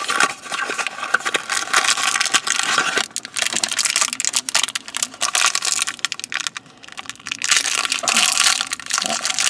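Crinkling and crackling of plastic toy packaging being opened and handled, with many small sharp clicks of tiny plastic mini-doll pieces.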